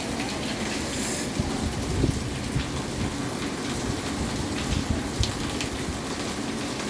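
Heavy rain pouring down in a steady hiss, with a few short low thumps scattered through it.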